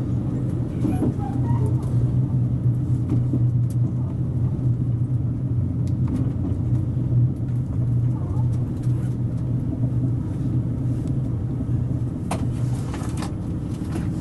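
Cabin sound of a KiHa 281 series diesel express railcar slowing alongside a station platform: a steady low drone from the engines and running gear, with a few sharp clicks near the end.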